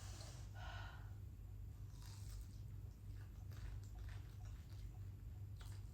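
Close-mic chewing and biting of fried chicken: soft wet mouth sounds with scattered faint crunches, over a steady low hum.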